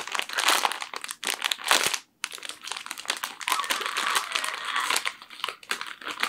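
Sealed plastic blind-box pouch being torn open and crumpled by hand: a dense crinkling rustle, broken by a brief gap about two seconds in.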